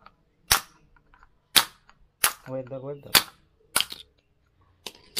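Sharp metallic clicks, about one a second, as pliers grip and slip on the steel can of a motorcycle radiator fan's small DC motor while it is being prised apart.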